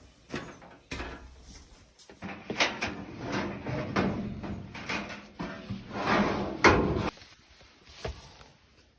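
Dryer's sheet-metal cabinet parts being handled and taken apart: a run of clicks, knocks and scraping, with the sharpest knock a little before the end.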